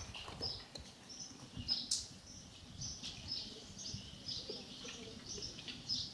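Faint, repeated short high-pitched bird chirps, a few each second, over a low background rumble.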